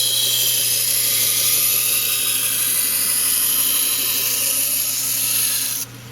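Kitchen knife edge being ground against a running abrasive belt on a belt grinder: a steady, high-pitched hiss over the motor's hum. Near the end the blade comes off the belt, the hiss stops suddenly, and only the motor hum continues.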